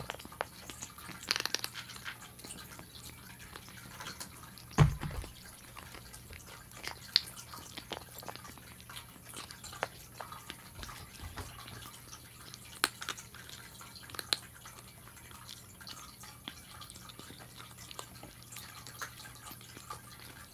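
Kittens eating dry kibble from bowls: scattered small crunches and clicks of kibble against the bowls, with one louder thump about five seconds in.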